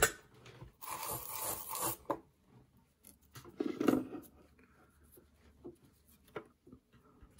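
Handling noise from a wired Strat pickguard as a pickup wire is threaded through a solder hole on the switch board: a dry rubbing scrape about a second in that lasts about a second, a short pitched sound around the middle, then light clicks and taps.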